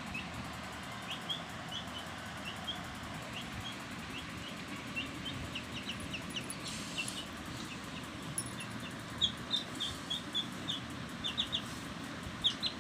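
Baby chicks cheeping: short high peeps scattered throughout, coming more often in the second half.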